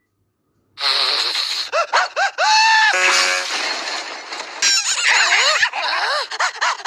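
Cartoon characters' exaggerated sneezes: a string of short vocal 'ah' sounds rising and falling in pitch, broken by noisy sneeze bursts. It starts after a moment of silence.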